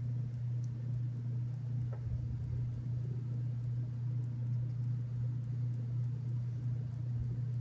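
A steady low hum, with a faint click of the plastic waffle plates being handled about two seconds in.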